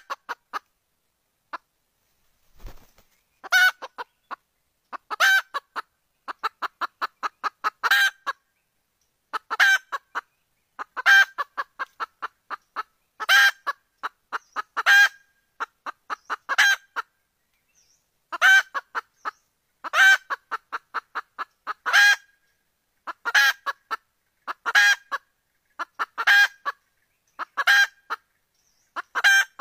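Red junglefowl hen calling to draw a rooster: a loud burst of rapid clucks about every one and a half to two seconds, with quicker runs of short clucks between some of the bursts.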